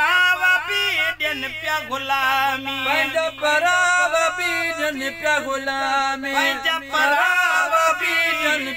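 Men singing a Sindhi naat, one voice at a time, in a long ornamented melodic line with wavering, gliding pitch.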